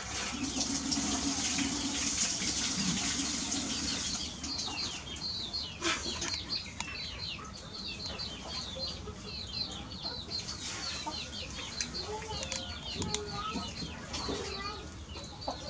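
Birds chirping in quick, repeated high notes, several a second, with lower clucking calls in the last few seconds.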